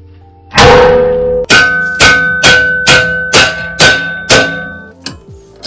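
Hammer striking a steel plate on a workbench, the metal ringing. One loud crash, then seven sharp, evenly spaced blows about two a second.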